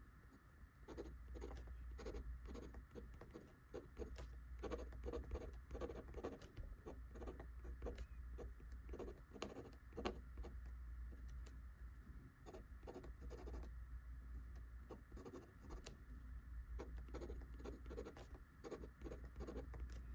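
Fountain pen nib scratching across paper in runs of short, quick strokes as words are written out.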